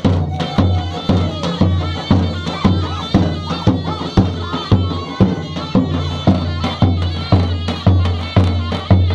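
Live traditional drum music: a large double-headed drum struck with a beater in a steady beat of about two strokes a second, under a sustained melody.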